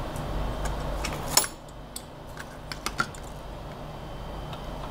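Small metal parts clicking and tapping together as they are handled at a workbench: one sharp click about a second and a half in, then a few lighter taps.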